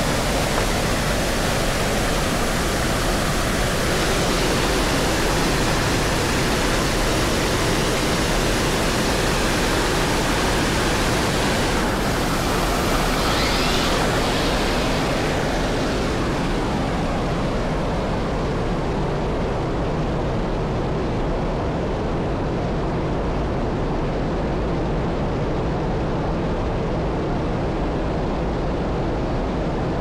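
Small waterfall pouring over a stone ledge, a loud, steady rush of falling water. Just past halfway the hiss at the top drops away and the rush sounds duller.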